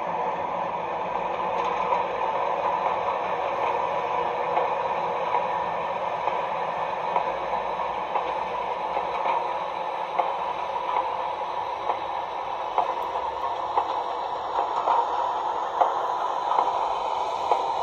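OO gauge model Class 60 diesel locomotive running slowly, its DCC sound decoder playing a steady diesel engine drone through the small onboard speaker. Light clicks from the wheels on the track come more often in the second half as the wagons follow.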